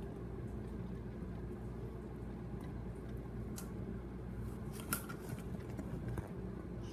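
Steady low hum, with a couple of faint clicks about three and a half and five seconds in.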